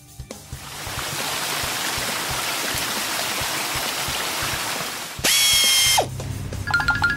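Cartoon sound effect of car-wash nozzles spraying water: a steady hiss for several seconds. It is followed by a loud, bright tone lasting under a second, and music starts near the end.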